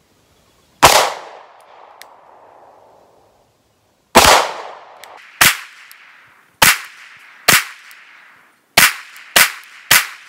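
Sarsilmaz SAR9 9mm pistol fired eight single shots, each followed by a short trailing echo. One shot comes about a second in, then after a pause the shots come roughly one a second, with the last three in quicker succession near the end.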